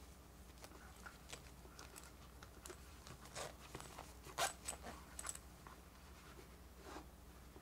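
A zipper on a small plush toy being worked closed by hand: a run of faint, short scratchy strokes and clicks mixed with fabric rustling, the loudest stroke a little past halfway.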